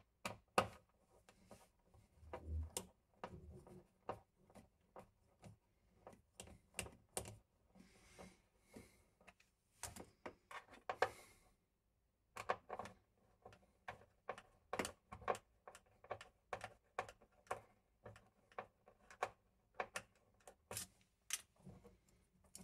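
Irregular light clicks and taps of metal on metal, a few a second, as a screwdriver and fingers work a Schneider wall socket's steel mounting frame into a flush box. There is a brief pause a little past halfway.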